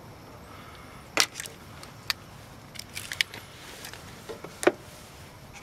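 Irregular sharp clicks and taps from hands and a small tool working thin wires and plastic quick-splice connectors, the loudest about a second in and near the end.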